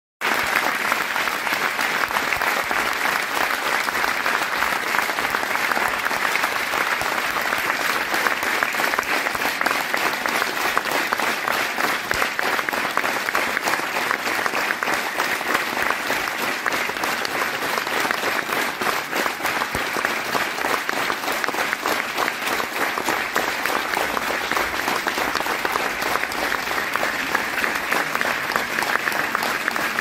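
Audience applause: many hands clapping at once in a dense, steady wash of claps.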